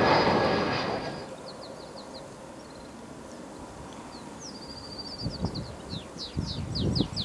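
A jet airliner's engine noise fades away in the first second. Then small birds chirp in quick high runs, busier from about four seconds in. From about five seconds in, irregular low rumbling gusts build up.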